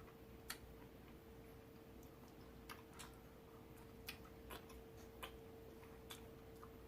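Near silence with faint, irregular clicks, about one or two a second: mouth sounds of someone chewing sour chewy candy. A faint steady hum runs underneath.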